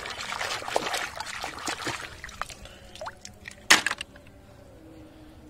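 Water trickling and splashing as a toy is rinsed, busiest in the first couple of seconds, with one sharp knock a little over halfway through before it goes quieter.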